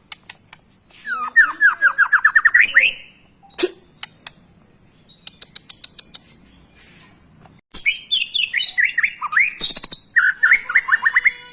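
White-rumped shama singing: a fast run of short down-sweeping notes, sharp clicks and a quick ticking series, then busy, varied whistled phrases near the end.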